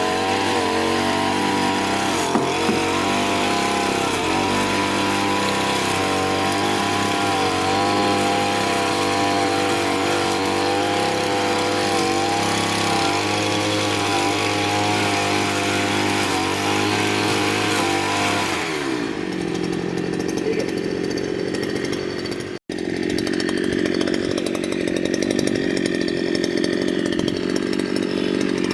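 Petrol brush cutter engine running fast under a cutting load, a steady high engine note. About nineteen seconds in the engine speed falls away. After a brief dropout it runs on at a lower, steady speed.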